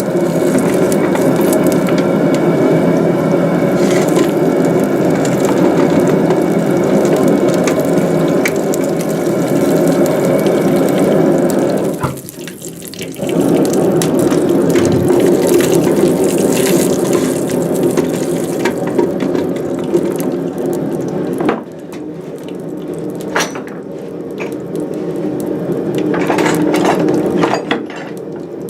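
Hot forged steel hook sizzling and bubbling in beeswax, the wax boiling and smoking on the hot metal as a wax finish goes on. The sizzle dips for a moment about twelve seconds in and is weaker in the last third, with scattered crackles.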